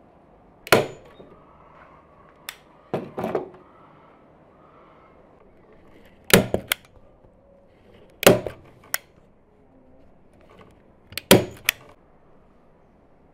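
Hand-squeeze staple gun firing staples through upholstery fabric into a chair seat base: sharp snaps, often two or three close together, every two to three seconds.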